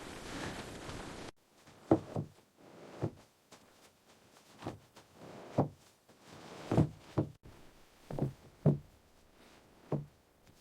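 A steady hiss that cuts off abruptly about a second in, then a slow, irregular series of about ten dull knocks.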